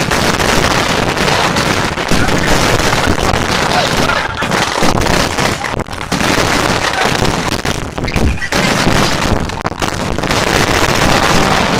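Aerial fireworks going off in a dense, continuous barrage, the bursts and crackles running together without a pause.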